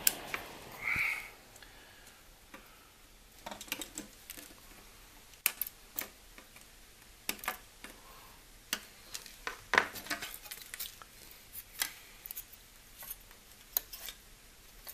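Flush cutters snipping off the excess leads of through-hole resistors on a circuit board: a dozen or so sharp clicks at irregular intervals.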